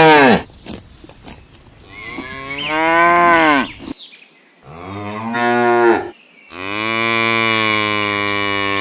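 A cow mooing: the end of one moo, then three more long moos with short gaps between, the first two dropping in pitch as they end and the last held level for about two seconds.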